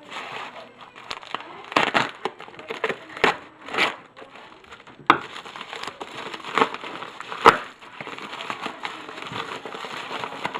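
Mail packaging being handled and opened by hand: irregular crinkling and crunching rustles with a few sharp snaps, the loudest about seven and a half seconds in.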